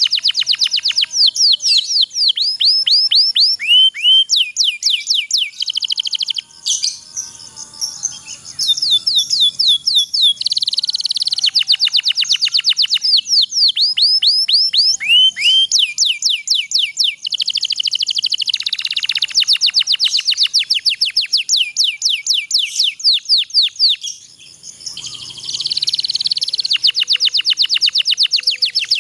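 Domestic canary singing long rolling trills: rapid runs of repeated, quickly falling high notes, many per second, that change speed and pitch from run to run. The song breaks off twice for a moment, near a quarter of the way in and again near the end.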